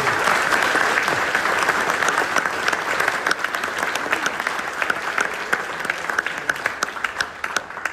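Audience applauding, a dense patter of clapping hands that slowly thins and dies away near the end.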